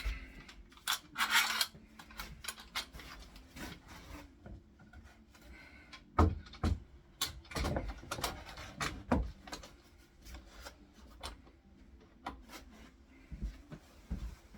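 Wooden flag pieces and clamps being handled during a glue-up: scattered knocks and clicks with short stretches of wood rubbing and scraping. The loudest knocks come about six seconds in.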